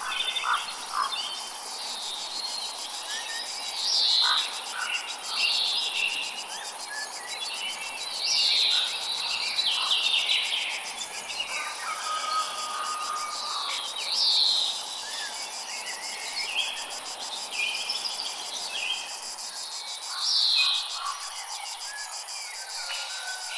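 Crickets and other insects buzzing steadily and high, with birds calling over them: bright downward-sliding calls every few seconds and a couple of short held whistles.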